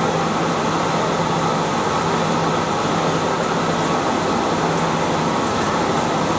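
Paper slitting and rewinding machine running steadily: a constant low hum over a dense, even mechanical noise.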